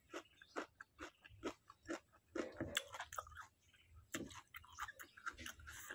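Faint, close chewing of raw green vegetables: a run of short, irregular crisp crunches and wet mouth sounds.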